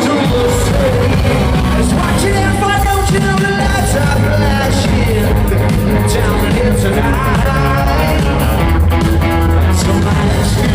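Rock music with singing over guitar, bass and drums, loud and steady.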